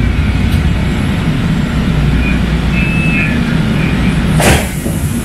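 Kinki Sharyo SLRV light rail car moving slowly, heard from inside the car: a steady low running rumble. A brief high-pitched tone sounds about halfway through, and a short burst of hiss comes near the end.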